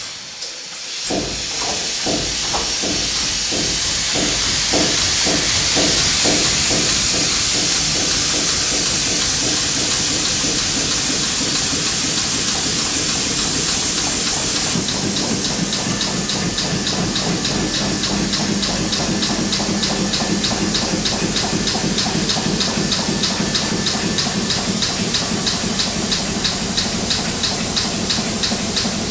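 1923 R. Wolf stationary steam engine starting up: a loud hiss over strokes that quicken as it gathers speed. After the hiss stops abruptly about halfway, it runs on with a steady, rapid, even beat.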